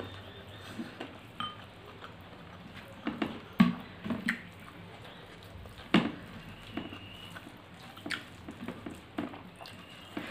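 Close-miked hand-eating of rice and curry: wet squishing as fingers mix food on the plates, chewing and mouth smacks, with a few sharp clicks, the loudest about three and a half and six seconds in.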